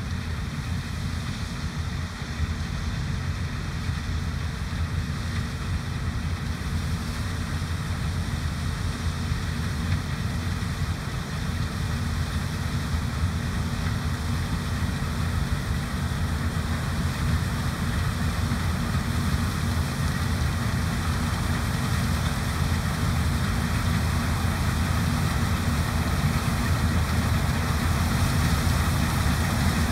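Heavy diesel engine of harvest machinery running steadily: a low rumble that grows gradually a little louder.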